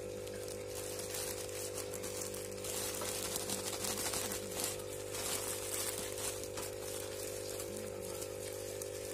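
Clear plastic bag of wood-shaving bedding crinkling and rustling as it is handled, loudest in the middle, over a steady low hum.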